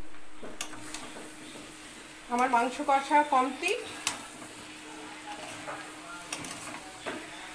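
Metal spatula stirring and scraping goat meat and potatoes in a metal kadai, with scattered clicks against the pan over a faint sizzle, as the curry is fried down in its masala. A brief voice sounds for about a second, a little over two seconds in.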